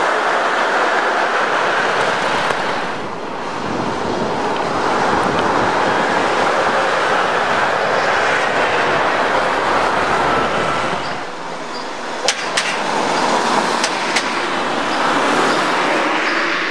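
Steady rushing road noise of cars driving past, tyres and engines on tarmac, dipping and changing twice, with a few sharp clicks late on.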